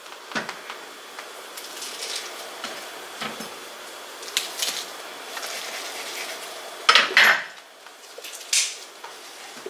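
Kitchen knife cutting corn cobs on a wooden cutting board: scattered knocks and clicks of the blade against the board, the loudest pair about seven seconds in.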